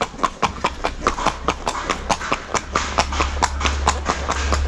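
A horse's hooves clip-clopping on a paved road, about five strikes a second, with a low rumble building in the second half.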